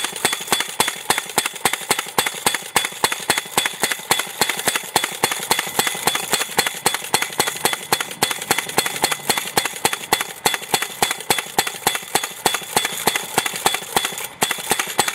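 Tippmann Propane Hammer, a fuel-injected propane-powered post driver, hammering a 4-pound-per-foot steel U-channel post into the ground through a side-mount adapter: rapid, even blows, several a second, without a pause.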